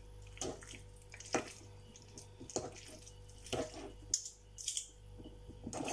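Two forks shredding canned stewed pork in a bowl: soft wet squishing, with a short stroke of fork against meat and bowl about once a second.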